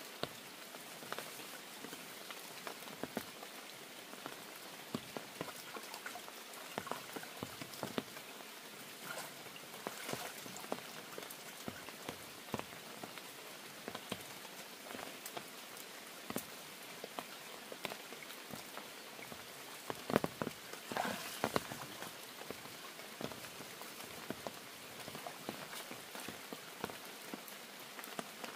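Steady rain falling, a constant hiss with many individual drops tapping close by. A brief spell of louder, denser taps comes about two-thirds of the way through.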